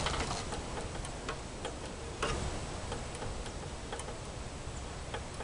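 Scattered light clicks and taps as hands work the throttle and governor-spring linkage on a lawn mower's small engine, which is not running, over a faint low rumble.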